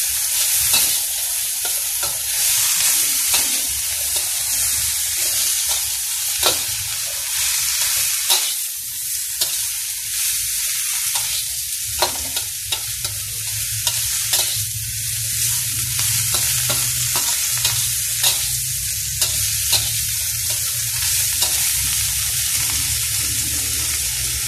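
Shredded jackfruit sizzling in hot oil in a wok while a spatula stirs it, scraping and tapping against the pan at irregular moments over a steady frying hiss.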